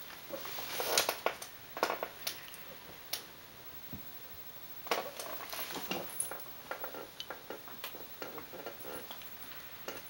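Irregular clicks, scratches and light metallic rattles of a small terrier pawing at a wire dog crate, its claws ticking on the wire and on the tile floor.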